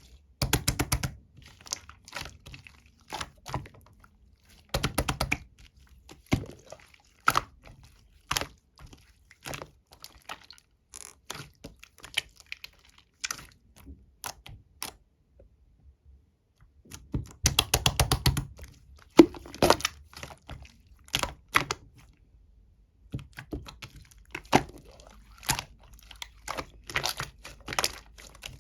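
Black marbled slime being squished and pressed by hand, giving bursts of rapid crackling clicks and pops with single clicks between them. There are short pauses in the middle and toward the end.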